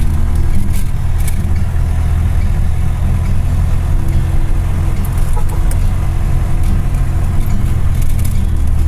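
Vehicle engine running steadily, heard from inside the cab while driving on a dirt road: a loud, even low hum, with a few short clicks or rattles over it.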